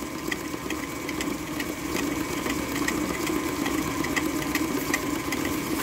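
Electric stand mixer running steadily with its flat beater creaming butter and sugar in a metal bowl, a motor hum with a light tick repeating about three times a second.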